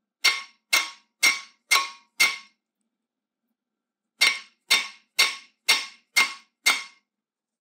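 Hammer striking the T40 retaining screws of a Renault Trafic's front brake disc: eleven metallic clangs about two a second, five, then after a pause six more, each ringing briefly. The blows are to shock the seized screws loose so they can be undone.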